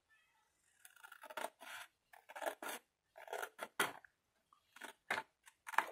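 Scissors snipping through a sheet of patterned paper: a run of short, crisp cuts starting about a second in, several a second with brief pauses.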